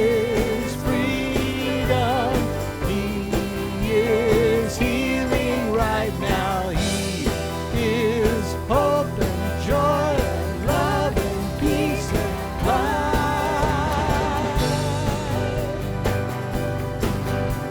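Live worship band playing an instrumental passage between sung lines: drums, bass and guitars under a wavering melodic lead line.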